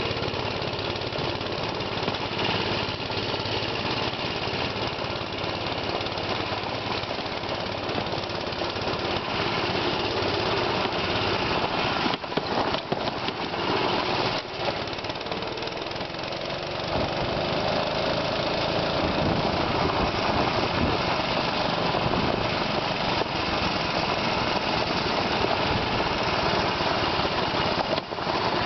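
97 cc, 2.8 hp mini-bike engine running while the bike is ridden, with a few short dips in the engine sound about halfway through. It then picks up, running louder and a little higher in pitch for the last third.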